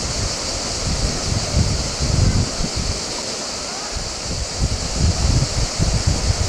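River rapid rushing over rocks, a steady hiss of white water, with gusts of wind buffeting the microphone.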